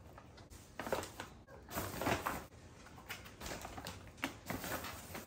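Food containers and bagged produce being packed into a foil-lined insulated tote bag: irregular crinkling and rustling of the lining and plastic, with a few light knocks of containers set down.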